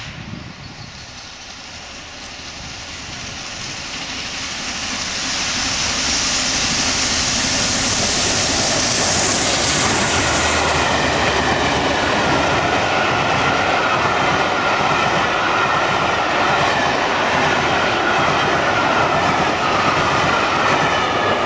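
Peppercorn A1 Pacific steam locomotive 60163 Tornado running past at speed, growing louder over the first few seconds, with a loud hissing rush as the engine goes by, then the steady rumble and clickety-clack of its coaches passing close.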